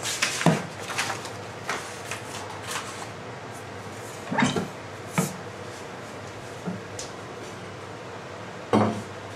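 Scattered knocks and clatters of kitchen things being handled and set down, about eight separate knocks. The loudest come near the start and near the end.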